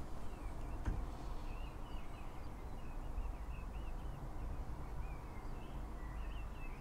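A small bird twittering in short, high, quickly wavering phrases, over a steady low background rumble, with a single click about a second in.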